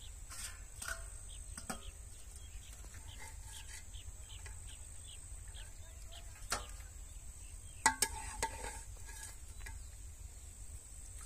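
Outdoor ambience: short chirps repeating about twice a second over a steady high-pitched whine, with a few sharp clicks and knocks, the loudest pair about eight seconds in.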